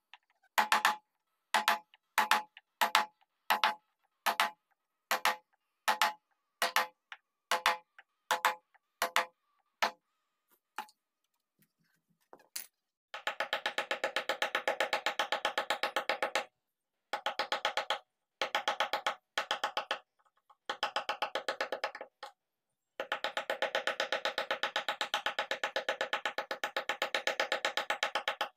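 A wooden mallet striking a carving chisel into a wooden bed panel, a ringing blow about every 0.7 s for the first ten seconds. After a short pause, from about a third of the way in, a hand-held sanding block is scrubbed rapidly back and forth over the carved panel in long runs with brief breaks.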